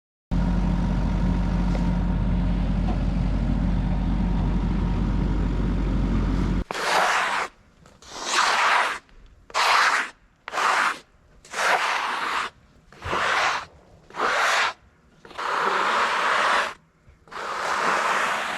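Sawmill engine running steadily for about six seconds, then cutting off suddenly. After it come about nine short scraping swishes, roughly a second apart.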